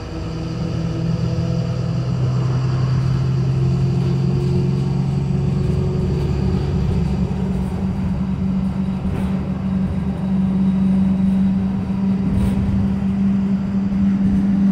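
Cummins ISB 5.9L inline-six turbo-diesel of a school bus running under way, heard from inside the passenger cabin over road noise. The engine note climbs and gets louder about ten seconds in as the bus picks up speed.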